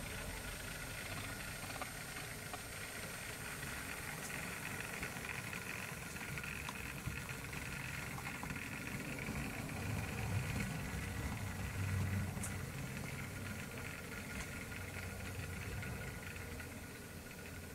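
Model railway locomotive running along the track: a steady low rumble with a hiss over it, swelling slightly a little past the middle.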